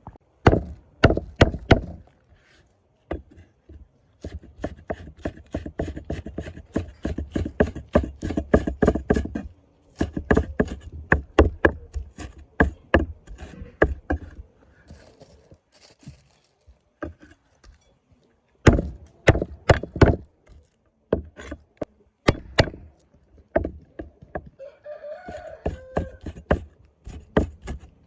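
Knife chopping on a wooden cutting board: quick runs of sharp strokes, several a second, with short pauses between the runs.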